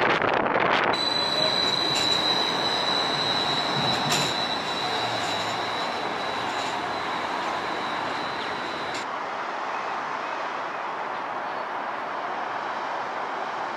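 Streetcar wheels squealing on the rails: a steady high-pitched squeal with a few clicks, starting about a second in and cutting off abruptly about nine seconds in, leaving steady city street noise.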